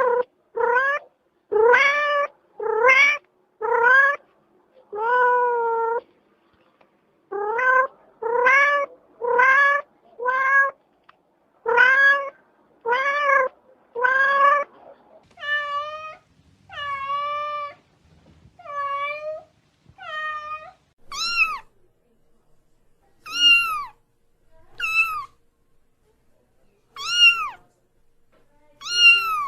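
Domestic cats meowing over and over, one meow after another with short gaps, about one a second at first. After about fifteen seconds the meows change to a different shape, and from about twenty seconds in they are higher-pitched and each falls in pitch.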